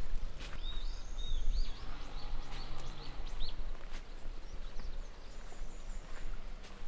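Outdoor ambience with a bird calling: a few arched chirps in the first second or so, then three short rising notes, over a steady low rumble.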